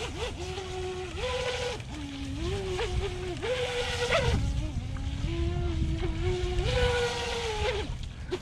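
Whine of a SprintJet micro RC jet boat's 2435 4800kv brushless motor and jet drive, running hard on a 3S lipo. The pitch steps up and down several times as the throttle is eased and opened.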